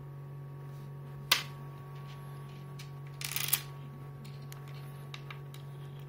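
Moizen M1 magnetic micro USB cable and its connector tip being handled: one sharp click a little over a second in, a brief scraping rustle around three seconds in, then a few light ticks. A steady low hum runs underneath.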